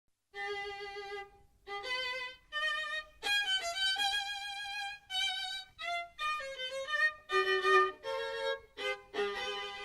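Solo violin playing a slow melody in short phrases, single notes with vibrato and brief pauses between them.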